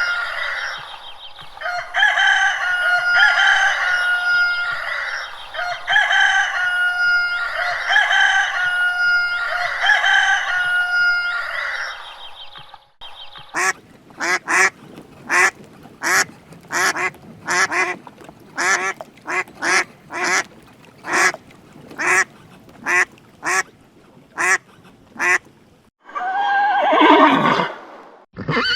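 Farm fowl calling over and over: longer repeated calls about every two seconds for roughly the first half, then a quicker run of short calls, one or two a second. Near the end a horse whinnies, its pitch falling.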